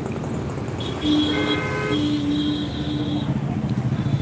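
A vehicle horn honks three times in quick succession, starting about a second in, over steady street traffic noise.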